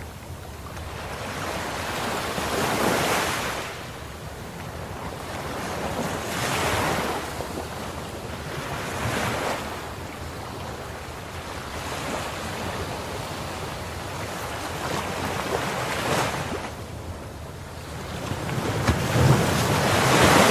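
Ocean surf: waves breaking and washing in, swelling and fading every three to four seconds, with the biggest wave near the end.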